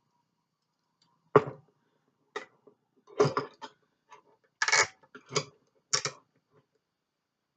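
Heavy metal handcuffs clinking and knocking as they are handled, a series of irregular sharp clatters with short gaps between them.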